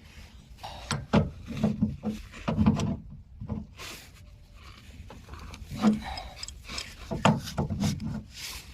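Caps being threaded onto an air conditioner's service valves and a wrench handled on them: irregular light metal clicks and taps with scraping in between.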